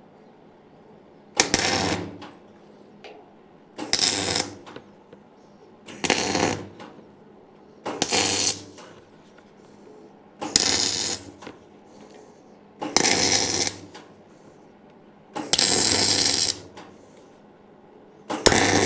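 MIG welder laying a series of short tack welds, eight crackling bursts of about half a second to a second each, every two to three seconds. The welder is tacking the corners of a steel plate into the end of a square-tube table leg.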